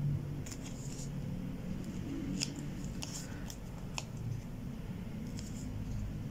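Small pointed scissors snipping through craft foam sheet, a scattering of short, sharp snips, over a faint steady low hum.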